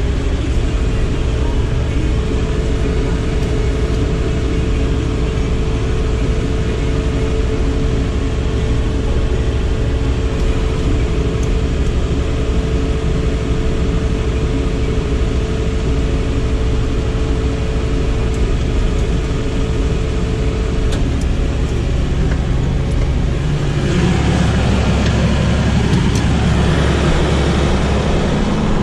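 Claas Dominator Mega 208 combine harvester's diesel engine running steadily, heard from the cab, with a thin steady whine over it that stops about two-thirds of the way in. A few seconds before the end the engine sound grows louder and its note changes.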